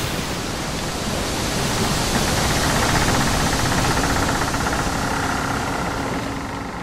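A loud, steady rushing noise with a faint hum under it, fading out near the end.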